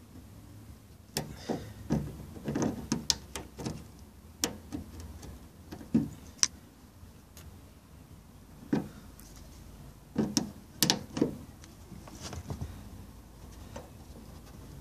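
Pliers and a metal hose clamp clicking and knocking as the clamp is fitted back onto a rubber fuel hose on the fuel pump module's valve fitting: irregular sharp clicks and small knocks, some in quick clusters.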